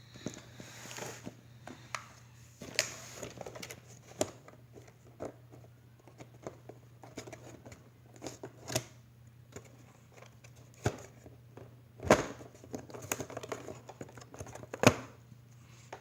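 Packaging being handled and pulled off a boxed toy RC car: irregular crinkling and rustling with tearing and scattered sharp clicks and knocks, the loudest about twelve and fifteen seconds in.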